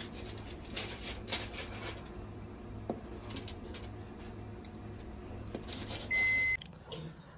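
Kitchen knife slicing through grilled beef steak on aluminium foil: repeated scrapes and crinkles as the blade cuts down into the foil, over a low steady hum. A short high beep about six seconds in.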